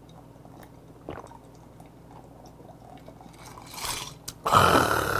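A man quietly swallowing a whisky highball, followed about four and a half seconds in by a loud, breathy exhale of satisfaction after the drink.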